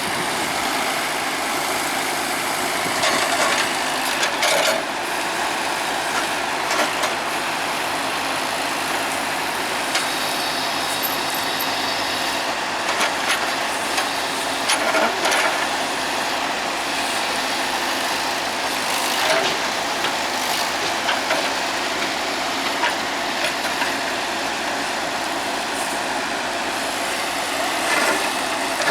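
Heavy diesel machinery engine running steadily, with scattered clanks and knocks and a brief high whine about ten seconds in.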